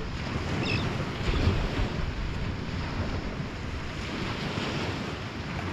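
Wind buffeting the microphone in uneven gusts over the steady wash of sea water.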